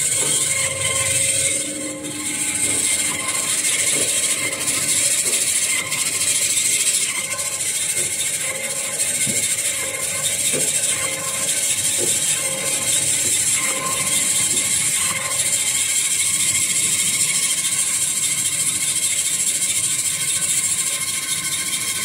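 XY AI 300 semi-automatic toilet-roll band saw cutting machine running steadily, with a continuous high hiss and hum from its blade and motor. A few light knocks come as paper logs are pushed through and cut into rolls.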